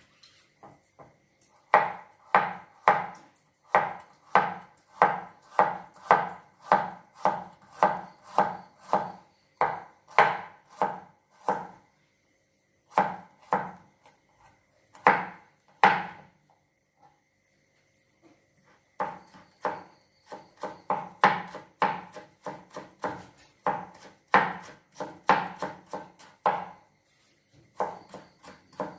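Cleaver chopping food on a plastic cutting board: a steady run of knocks at about two a second, breaking off twice for a moment, then a quicker run in the second half.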